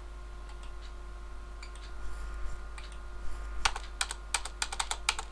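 Computer keyboard keys being pressed: a few scattered keystrokes, then a quick run of about a dozen in the last second and a half, over a faint steady hum.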